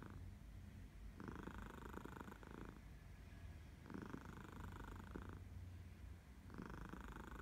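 Domestic cat purring softly, the purr swelling and fading with each breath about every two and a half seconds.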